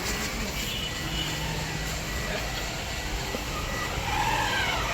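Steady vehicle and traffic noise. Near the end, a wavering tone starts that rises and falls.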